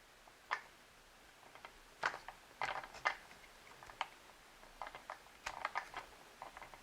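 Small plastic toy pieces being handled: a string of irregular clicks and taps, bunched in two clusters.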